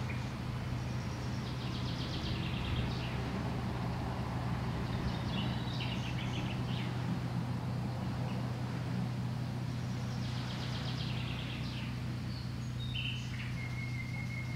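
Small birds singing short trilled phrases every few seconds, with a thin held whistle near the end, over a steady low hum.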